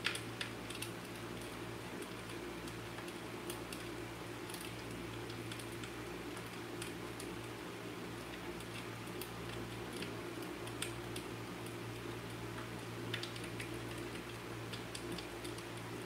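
Fireplace crackling: scattered, irregular sharp pops and ticks over a steady low hum.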